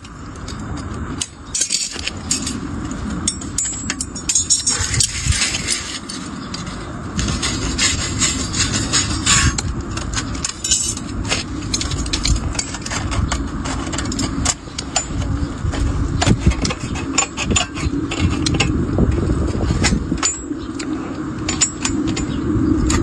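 Sheet iron being worked by hand: many irregular metallic clinks, scrapes and rattles of thin iron sheet and tools.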